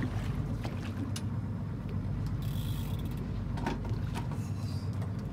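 Steady low hum of the boat's idling engine, with the mechanical whirr and light clicks of a conventional fishing reel being cranked.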